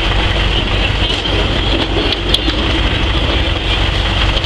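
Cat skid-steer loader's diesel engine running steadily at idle, a continuous low rumble, with a short click a little past two seconds in.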